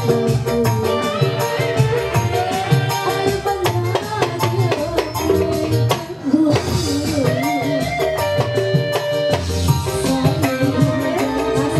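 Live dangdut music played loud through a PA: hand drums and guitar keep a steady beat under a wavering female vocal line, with a short drop in the music about six seconds in.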